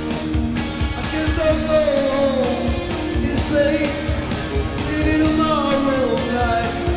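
Man singing into a handheld microphone over rock-and-roll backing music with a steady drum beat, his voice sliding between long held notes.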